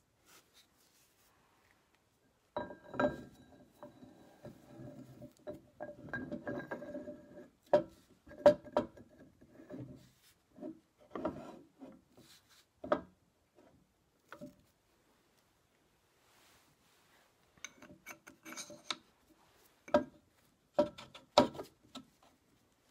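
Metal parts of a Massey Ferguson 35 hydraulic lift cover being handled and fitted by hand: clinks, scraping and sharp knocks with a short metallic ring, in scattered bursts. There is a few seconds' pause about two-thirds of the way through, and a cluster of sharper knocks near the end.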